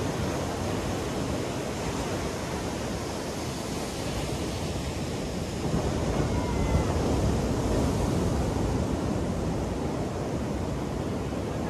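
Ocean surf breaking on a sandy beach: a steady wash of waves that swells about halfway through as a larger wave breaks.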